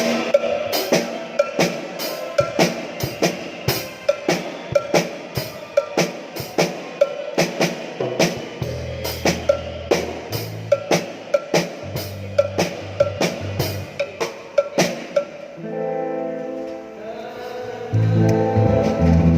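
Music with a drum kit playing a steady beat of sharp snare-type hits, about two to three a second, with bass notes joining about nine seconds in. The drum hits stop about fifteen seconds in and held chords and bass carry on, growing louder near the end.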